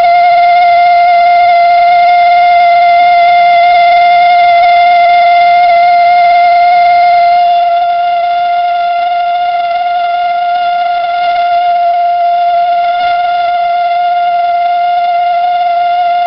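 Toyotomi Laser Burner kerosene heater giving a loud, steady steam-whistle-like resonance tone, one held pitch with overtones, a little quieter from about seven and a half seconds in. It is the resonance the burner sets up when it is short of combustion air.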